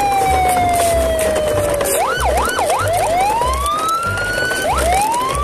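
Cartoon-style whistle sound effect: a single tone slides slowly down for about two seconds, warbles quickly up and down three times, then rises in two long sweeping glides, with low thumps beneath.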